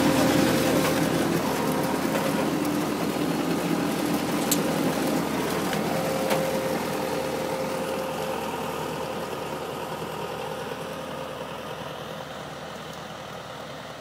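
Tractor engine running steadily as it pulls a Grimme potato planter, with machinery noise and two sharp clicks about four and a half and six seconds in; the sound grows steadily fainter as the rig moves away.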